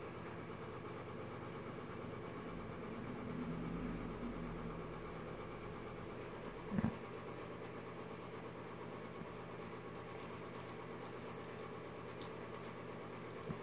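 A German Shepherd chewing and mouthing a ball, over a steady low mechanical hum; one short, louder low sound stands out about seven seconds in.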